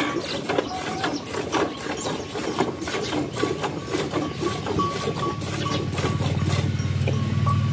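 Milk squirting from a cow's teats into a plastic bucket during hand milking, a quick, uneven run of splashing hits. A low steady hum comes in about two-thirds of the way through.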